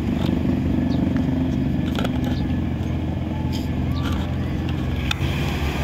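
A motor engine running steadily, with a few short clicks over it.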